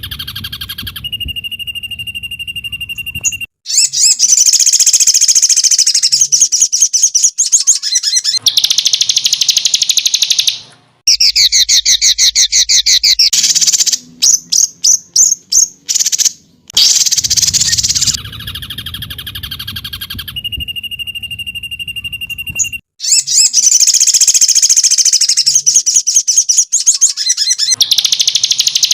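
Edited birdsong master track: loud, rapid, high-pitched songbird song in spliced blocks that cut in and out abruptly, with some passages repeated and a quick run of short separate trills in the middle.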